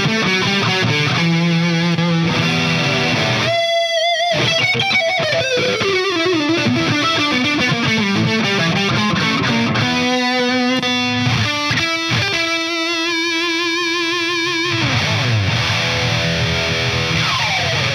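Epiphone Les Paul Custom electric guitar played through a Hughes & Kettner Coreblade amp's high-gain Ultra 2 channel: distorted lead playing with quick runs and long held notes with vibrato, then lower chords in the last few seconds.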